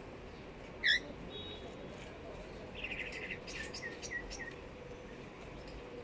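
Cockatiel giving one short, loud call about a second in, followed by a string of quieter short chirps.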